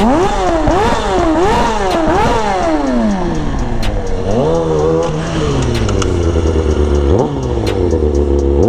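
Kawasaki Ninja 636 inline-four sport-bike engine revving hard during a wheelie. The revs swing up and down several times in quick succession over the first three seconds, then drop to a low steady run, with a short rev about five seconds in and another quick rise about seven seconds in.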